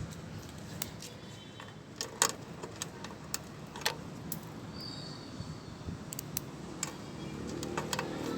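Small metal tools and parts clicking and clinking as they are handled: a dozen or so sharp, separate clicks at irregular intervals over a low steady background.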